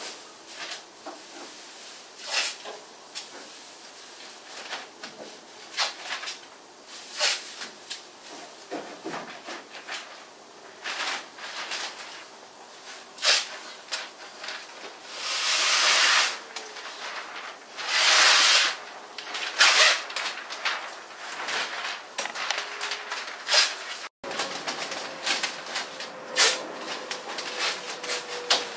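Masking paper and plastic sheeting crinkling and rustling as a car body is masked off for paint, with many short sharp crackles and taps. About halfway through come two longer, louder noises of about a second each.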